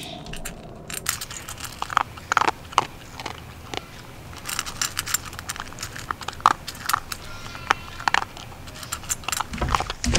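Small dog eating dry kibble from a stainless steel bowl: irregular crunches and sharp clicks of kibble and teeth against the metal.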